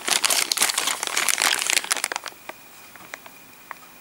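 Small clear plastic bag crinkling as it is squeezed and turned in the hands, the plastic miniature parts inside shifting, for about two seconds; then it settles to a few light clicks.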